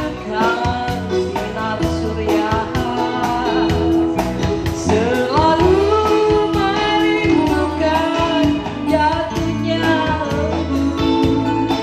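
A woman singing a melodic song into a handheld microphone, amplified over music accompaniment with a steady beat.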